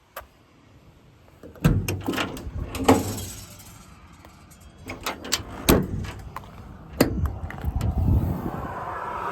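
Metal compartment doors on a truck's service body being handled: a string of latch clicks and sharp knocks of metal doors opening and shutting.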